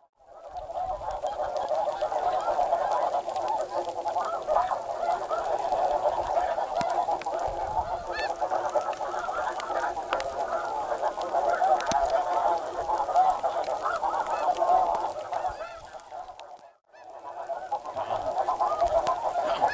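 A large flock of snow geese calling, a dense chorus of many overlapping honks. It cuts out abruptly about three seconds before the end, then resumes.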